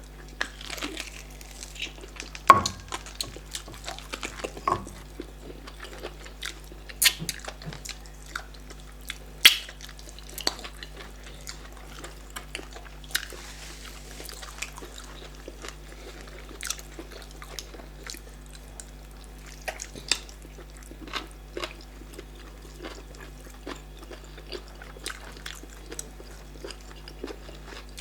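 Close-miked eating of starch fufu and bitter leaf soup: chewing and mouth smacks, with scattered sharp clicks, the loudest about two and a half and nine and a half seconds in. A steady low hum runs underneath.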